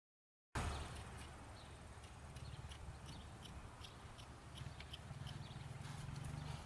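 Outdoor ambience that starts abruptly about half a second in: a steady low rumble with scattered short, high chirps and ticks over it.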